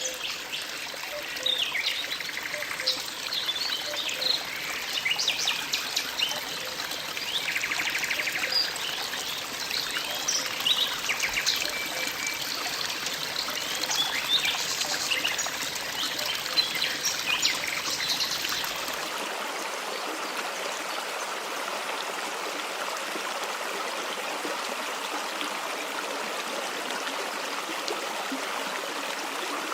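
A stream running, with small birds chirping over it. About two-thirds of the way in the sound switches abruptly to a steadier, even flow of water with no birds.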